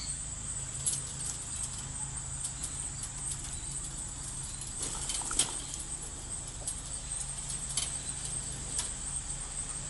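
Pet budgerigars: scattered small clicks and taps with a short rising chirp about five seconds in, over a steady low hum.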